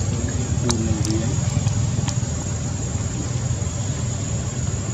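Steady low rumble of an engine idling, with a brief faint voice-like call about a second in.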